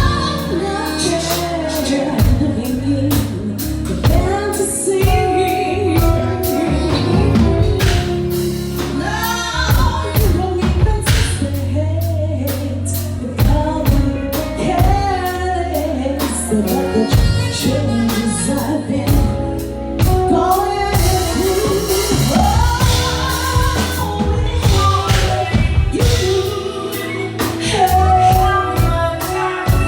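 Live R&B singing backed by a live band, with a bass line, drums and keys under a voice that swoops up and down through long phrases.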